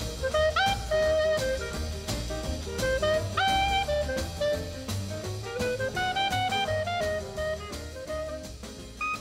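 Jazz music: a saxophone melody that scoops up into some notes, over a bass line and drum kit.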